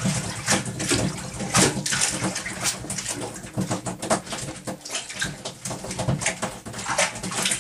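Water sloshing and slapping against a small boat's hull in irregular splashes.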